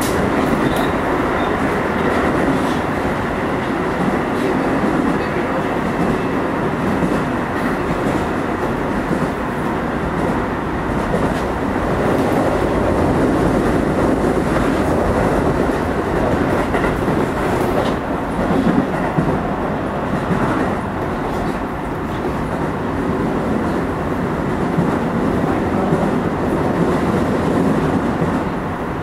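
Keio 9000 series electric train running at speed, heard from inside the carriage: steady rolling noise of wheels on rail with occasional short clicks.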